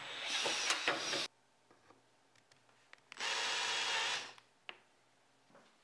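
Cordless drill cutting through an aluminium plate for about a second, then a second run of about a second as it countersinks a hole, followed by a single click.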